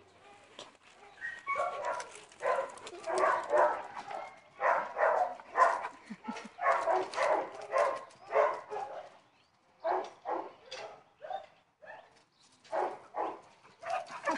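Young dogs barking and yipping in play: a quick run of barks through the first two-thirds, then scattered yips and barks.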